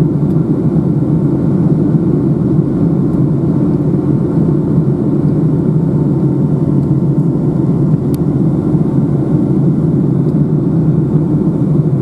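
Steady low rumble of engine and airflow noise inside a Boeing 757-200's cabin in flight, heard at a window seat, with one faint click about eight seconds in.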